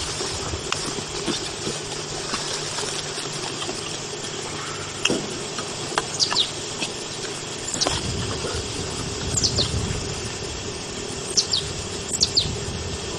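Field ambience on an old camcorder recording: a steady hiss and hum, a few short high descending chirps like small birds, and scattered light clicks and knocks as the missile launcher tube is handled.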